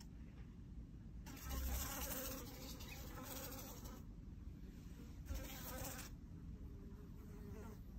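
A fly buzzing: a faint, steady insect drone, with two stretches of louder hiss, one about a second in and another past the middle.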